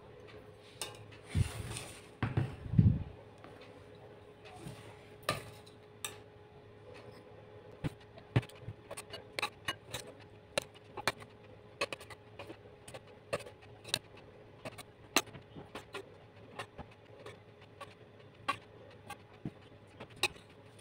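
Steel spoon clinking against a stainless-steel pot and a glass bowl as syrupy amla (Indian gooseberries) are spooned across and stirred: a string of light clicks and taps, with a few duller knocks about two seconds in.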